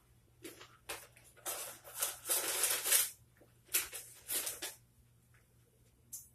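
Rustling and handling of clothing being rummaged through, in irregular bursts. There are a few light knocks, then a longer stretch of rustling about two seconds in, which is the loudest, and shorter rustles around four seconds in.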